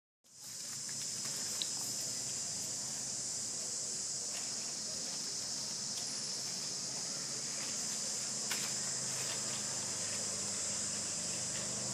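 Steady high-pitched chorus of insects, with a few faint ticks and rustles. The sharpest ticks come about one and a half seconds in and again after eight seconds.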